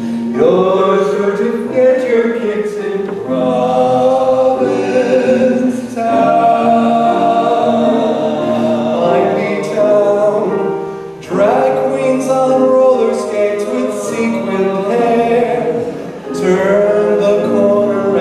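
Choir singing, several voices holding notes together in phrases a few seconds long with short breaks between them.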